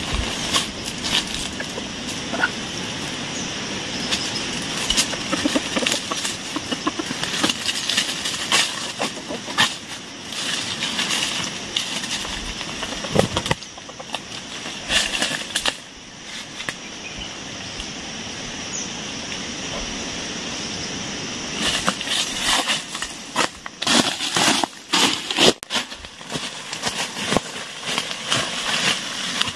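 Dry leaves and twigs rustling and crackling as a person moves through forest undergrowth and leaf litter, with a chicken's wings flapping. The crackling is densest and loudest near the end.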